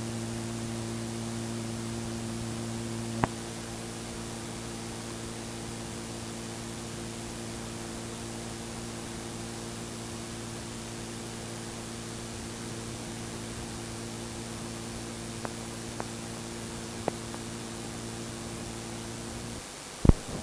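Steady electrical hum and hiss on the recording, with no speech. There is a click about three seconds in, a few faint ticks later, and a loud click near the end.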